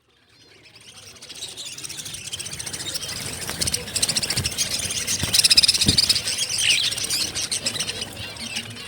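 A crowd of small caged birds chirping and chattering all at once, fading in over the first couple of seconds, with a few soft low thumps.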